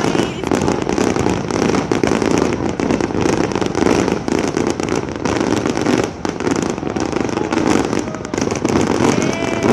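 Fireworks display going off in a continuous rapid barrage of bursts, pops and crackles.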